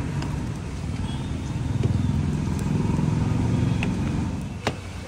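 A motor vehicle's engine rumble going past close by: it swells through the middle and fades away about four and a half seconds in. A single sharp click follows just after.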